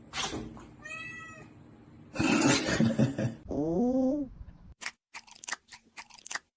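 A cat meowing: a short high call about a second in, then a longer meow that rises and falls in pitch near the four-second mark, with some rustling and a few clicks around them.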